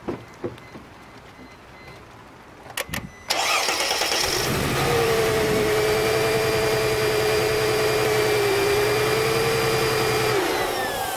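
V6 engine idling with one ignition coil unplugged, running rough on a dead cylinder. A few clicks come in the first three seconds, then the engine sound turns much louder and steady with a held tone, easing off shortly before the end.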